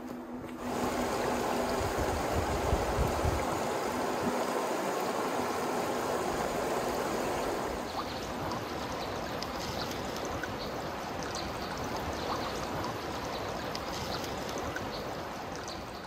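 Creek water flowing and splashing over rocks in a steady rush. About halfway through, the sound becomes thinner and brighter, with small splashes and drips.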